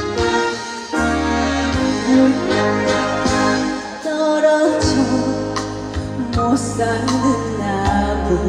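Instrumental interlude of a slow trot ballad's backing track, with sustained melody lines over a steady bass.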